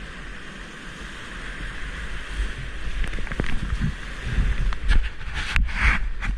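Whitewater rapids rushing around a kayak, with paddle strokes splashing and wind buffeting the microphone; the splashing grows louder near the end.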